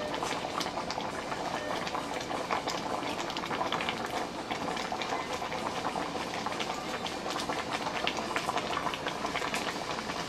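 Pot of afang soup boiling, a steady crackle of many small irregular pops from the bubbling surface.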